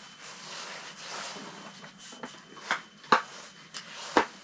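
Rustling of clothing and fishing gear being handled, with several sharp clicks and knocks in the second half, the loudest about three seconds in.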